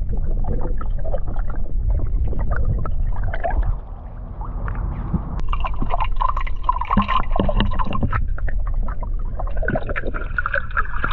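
Water gurgling and bubbling, muffled as if heard underwater, with many small clicks and a brief lull about four seconds in.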